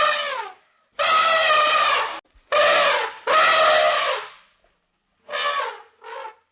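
An animal calling: a run of loud, pitched calls, four long ones each dipping slightly in pitch at the end, then two shorter, quieter ones near the end.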